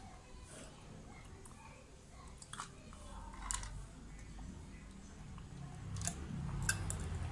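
Faint mouth and swallowing sounds of a person drinking from a glass, with a few light clicks.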